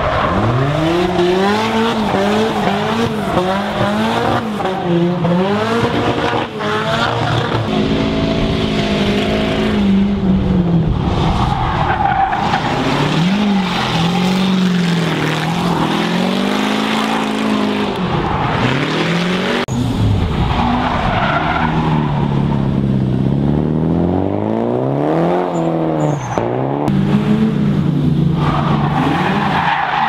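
Drift cars' engines revving hard, the pitch swinging up and down over and over as the throttle is worked through the slides, with a few sharp drops. Tyres squeal and hiss in several surges as the cars drift sideways.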